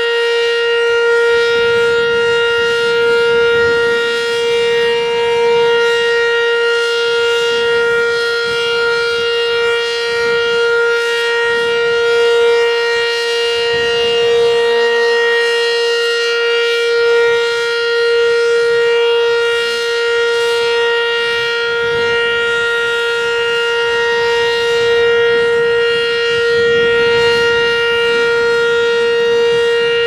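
ACA Banshee outdoor warning siren sounding a loud, steady tone during its test, holding one pitch throughout.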